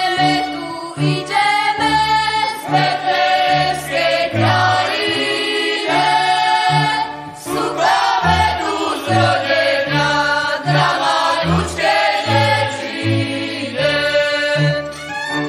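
A folk vocal group singing a Goral Christmas carol together, with a low bowed bass line pulsing underneath.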